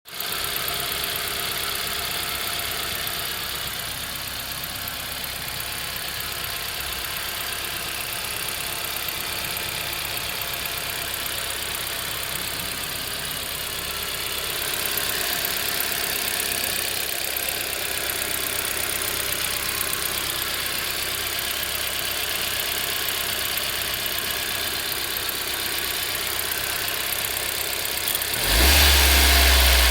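Subaru Pleo's EN07 660 cc four-cylinder engine running at idle with a fast ticking, an abnormal noise that is coming from the fuel injectors. Near the end the engine gets suddenly louder and deeper as its speed rises.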